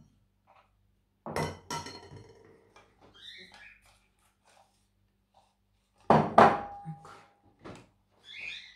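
A spoon clinking and knocking against a glass vase while an orchid root is wetted. There are a few knocks with a short ring about a second in, and a louder double knock about six seconds in, whose ring hangs on for about a second.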